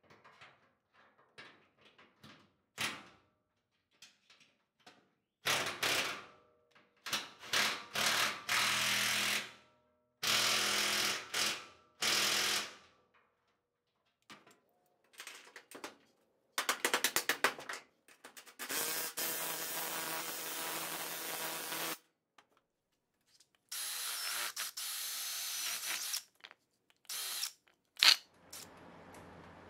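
Electric drill running in several bursts of one to five seconds, with scattered clicks and knocks between them and a sharp knock near the end.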